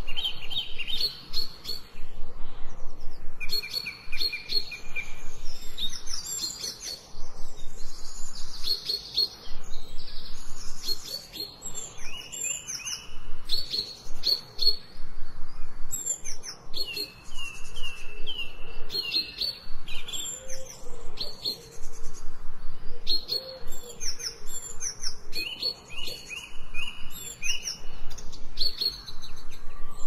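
Several songbirds singing at once: a dense chorus of overlapping chirps, whistled notes and short phrases of quickly repeated notes.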